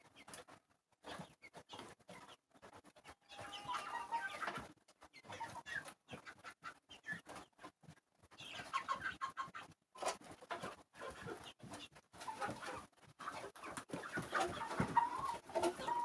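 A flock of broiler chickens clucking while pecking feed from a wooden box, with many quick taps of beaks on the feed and wood; the clucking gets busier near the end.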